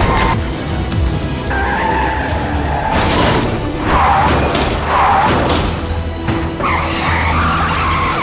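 Dramatic background music with tyre-squeal and skidding sound effects: several screeches, one after another.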